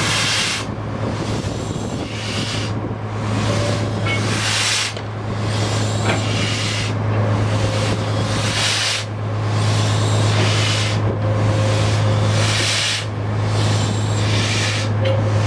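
Steam locomotive NZR Jb 1236 moving slowly while shunting, its steam exhaust hissing in long, even puffs about every two seconds over a steady low hum.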